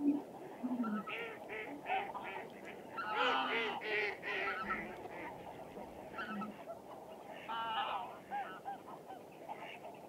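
A flock of wild waterfowl calling with repeated honks, several birds overlapping, in clusters that are loudest about three to four seconds in and again near eight seconds. A single short knock comes at the very start.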